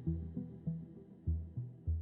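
Background music: deep bass notes pulsing two to three times a second, each struck sharply and fading away.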